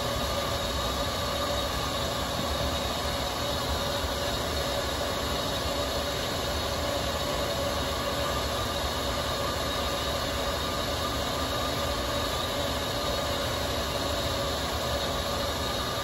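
Countertop heating blender running a 7-minute programmed cycle, blending and heating a champurrado drink of oat flour, almond milk and cocoa: steady whirring with a constant whine that does not change.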